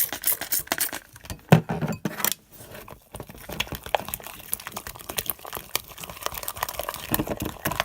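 Sticky homemade slime being stirred in a bowl with a spoon as borax activator is worked in: a busy run of quick, irregular clicks and wet squelches.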